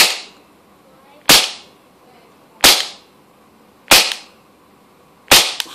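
Air gun fired five times through a shooting chronograph, one shot about every one and a third seconds, each a sharp crack that fades quickly.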